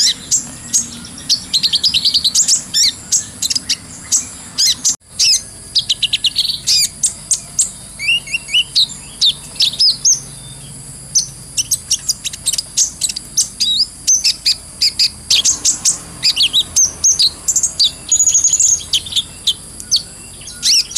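Kolibri ninja (van Hasselt's sunbird) singing nonstop in rapid high-pitched chirps and twittering trills, over a steady high hiss. The song drops out briefly about five seconds in.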